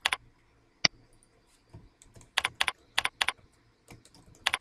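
Typing on a computer keyboard in short runs of keystrokes, with a single sharper click just under a second in and a quick run of about five keys a little past halfway.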